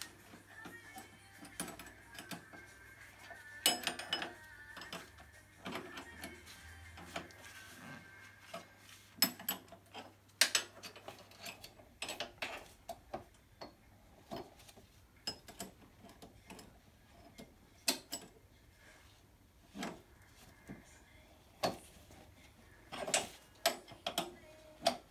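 Hand tool working the lock nuts on an ATV's steering tie rod as they are tightened: irregular metallic clicks and clinks, a few at a time with pauses between.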